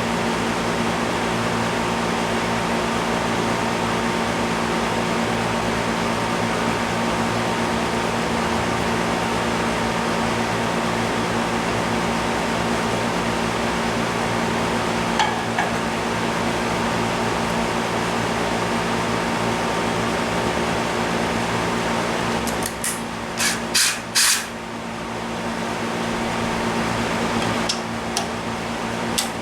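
Steady drone of a workshop air conditioner running full blast, with a few brief clicks and rattles of hand tools about three-quarters of the way through.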